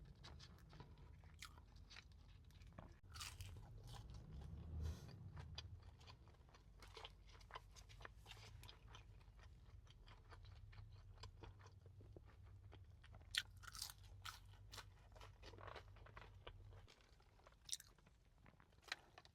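Close-up chewing and crunching of a fast-food meal, with many short wet clicks and crunches. A low hum runs underneath and cuts off a couple of seconds before the end.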